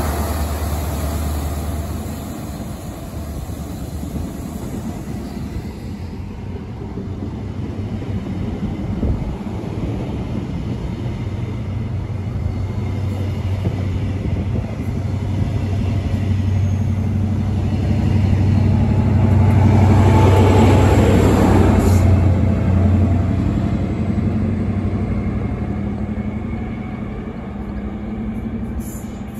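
CrossCountry High Speed Train with Class 43 diesel power cars running past: a steady diesel engine drone and the rumble of Mark 3 coaches, loudest about twenty seconds in as the rear power car goes by, then fading as the train draws away.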